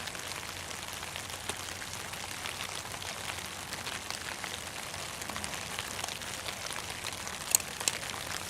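Light rain, a little more than a drizzle, falling on a Dyneema (Cuben fiber) tarp just overhead: a steady hiss of many small drop ticks, with two louder sharp drops near the end.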